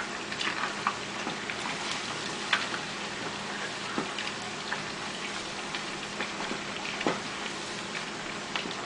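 Food frying in hot oil: a steady sizzle with scattered sharp pops and crackles.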